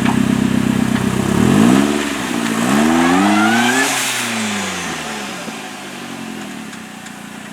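Off-road 4x4's engine idling, then revved twice in quick succession, the second rev climbing higher, before dropping back to a steady idle.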